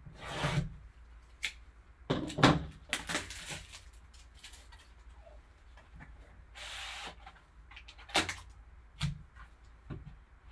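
Cardboard card box and packaging being handled on a table: scattered taps, knocks and rustles, with a sharp knock about two and a half seconds in and a longer rustling scrape around seven seconds.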